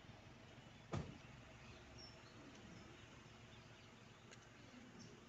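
Near silence: faint outdoor ambience with a few faint, short bird chirps, and a single sharp thump about a second in.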